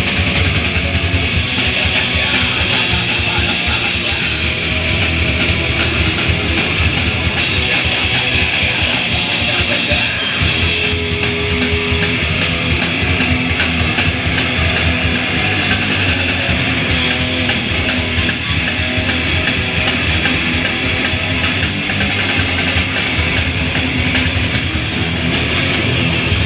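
Heavy rock band playing live, loud and dense, with electric guitars and no break.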